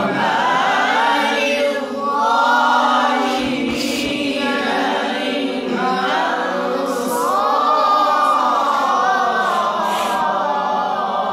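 Solo Quranic recitation by a man: long, ornamented chanted phrases with wavering held notes, broken by two short breaths about two and six seconds in.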